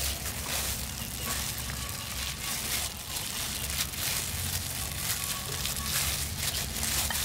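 Thin plastic food gloves crinkling and marinated raw chicken wings squishing wetly as they are handled and pushed onto a skewer, in an irregular run of small crackles, over a steady low rumble.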